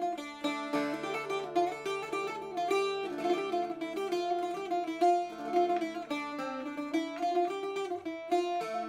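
Background music: a plucked-string tune, mandolin or guitar-like, with notes picked in a steady rhythm.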